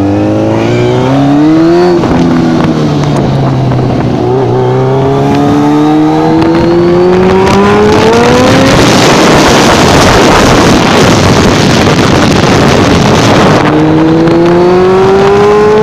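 Heavy motorcycle engine accelerating hard through the gears: its pitch climbs, falls back about two seconds in, and climbs again. Midway a loud rushing of wind on the microphone at speed swamps it for about five seconds, and the engine's rising pitch comes back near the end.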